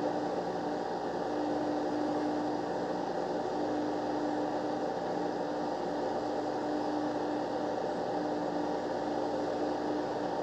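Breville Nespresso Vertuo Next coffee machine running mid-brew as it spins the capsule and pumps water through it: a steady mechanical hum with a low tone that keeps breaking off and coming back.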